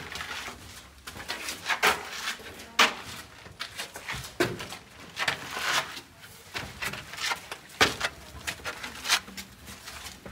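Footsteps scuffing and scraping on stone steps in a narrow stone passage, an irregular run of shuffles and soft knocks with a small-room echo.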